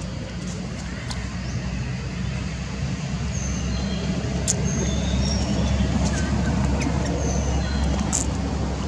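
Low rumble of a motor vehicle's engine. It grows louder through the middle and eases slightly near the end, with a few short high chirps above it.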